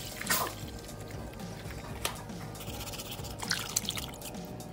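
Water splashing and sloshing in a tray as electronic parts are rinsed and scrubbed by hand, in short splashes with the loudest about a third of a second in, over background music.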